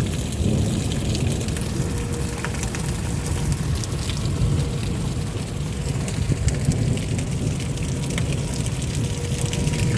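Steady rain falling, with many individual drops ticking close by over a continuous low rumble of wind on the microphone.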